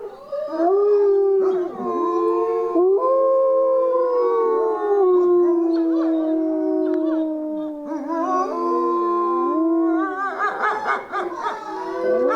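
A pack of wolves howling together in a chorus: several long howls at different pitches overlap, sliding up and down. About ten seconds in, quick wavering, yipping calls join the howls.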